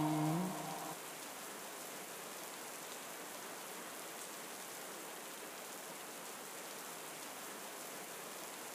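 Steady rain falling, a rain sound track. In the first second a reciting voice's last held note trails off, leaving the rain alone.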